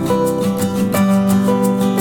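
Background music: acoustic guitar with a steady strummed rhythm.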